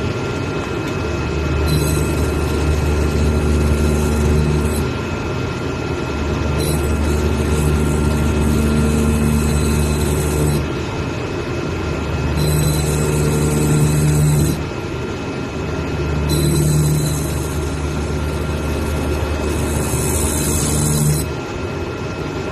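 CNC servo-knife cutting machine running with a steady low hum and whine. Its sound changes every two to four seconds as the knife head's motion stops and starts between cuts.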